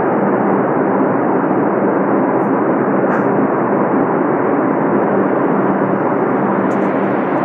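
Subway car interior noise: a loud, steady rumble with a low hum running under it.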